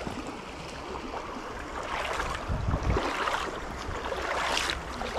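Small creek running steadily, with wind gusting on the microphone about halfway through.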